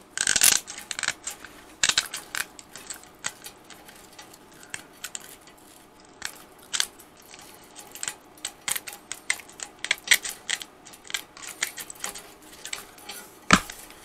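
Hand snips cutting a sheet of aluminium wire mesh: an irregular run of sharp metallic snips as the blades shear the wire strands, with one louder click near the end.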